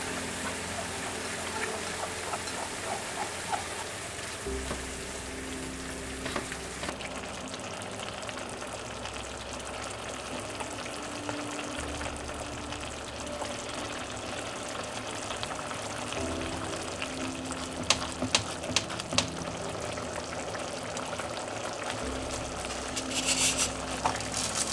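Ground-beef and canned-tomato meat sauce sizzling and simmering in a frying pan, with a few metal clicks of the ladle against the pan past the middle. A brief rustle near the end as dry spaghetti goes into the pan of water. Soft background music underneath.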